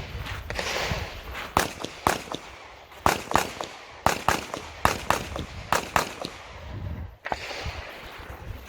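Rapid pistol fire from an Open-division IPSC race pistol, a Bul SAS II UR: about fifteen sharp shots in quick pairs and triples, with short breaks between strings, stopping about six and a half seconds in.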